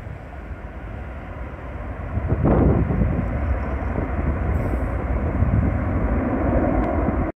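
Boeing 737-700's CFM56-7 jet engines rumbling during the landing rollout, rising sharply in loudness about two and a half seconds in as reverse thrust is applied, then staying loud until the sound cuts off abruptly near the end.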